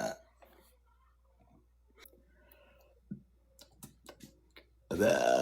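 Faint scattered clicks, then near the end a woman starts a loud burp with a wavering pitch.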